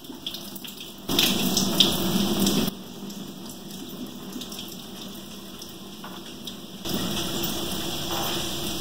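Juice from a can of pineapple pouring and trickling into a kitchen sink as the can is drained, heavier for about a second and a half starting a second in and again near the end.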